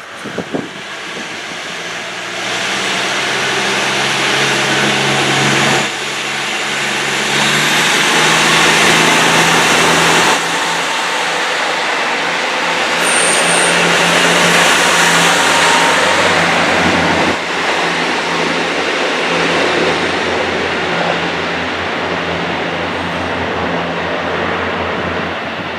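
KiYa 95 diesel measuring train running under power, its diesel engines sounding over wheel-on-rail noise; the sound builds over the first several seconds and dips abruptly a few times.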